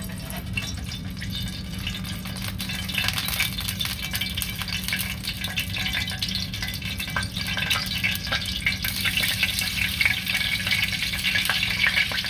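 Hot oil sizzling and crackling in a frying pan while a utensil scrapes and stirs wet shredded potato mixture in a bowl. The sizzling grows louder toward the end as a scoop of the shredded potato goes into the oil.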